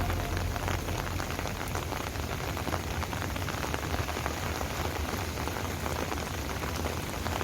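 Steady rain falling: an even hiss dotted with many fine drop patters.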